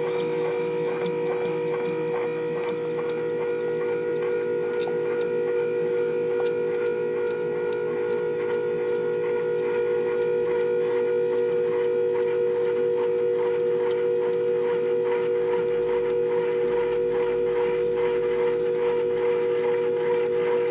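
Stepper motor driving an axis of a home-built CNC machine: a steady whine of several held tones with a fine ticking of the steps underneath. The motor is one the builder finds a bit too small and weak for the machine.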